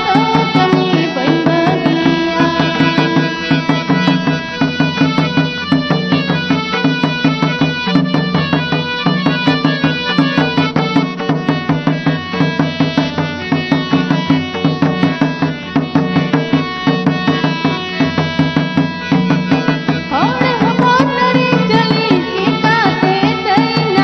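Santhali folk music for the Rinjha (Karam) dance: drums beating a fast, even rhythm under a sustained melody. A wavering melodic line rises above it about twenty seconds in.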